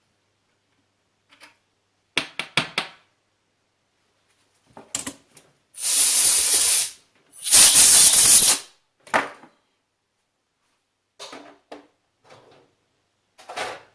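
Two loud hissing blasts of air, each about a second long, in quick succession, most likely from a compressed-air blow gun clearing chips out of a freshly tapped thread. A few quick clicks come about two seconds in.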